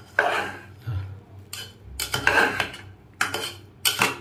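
A metal spoon scraping and clinking against the inside of an aluminium pressure cooker while stirring cooked biriyani rice, in a series of about six strokes roughly a second apart.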